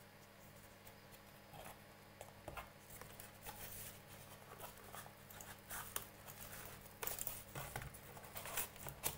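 Small cardboard mouse box being handled and opened: scattered soft taps, scrapes and rustles of kraft cardboard and paper, busier in the second half, over a faint steady low hum.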